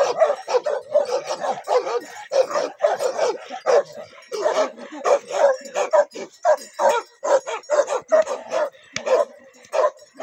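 Two chained dogs barking rapidly and without a break, about two to three barks a second.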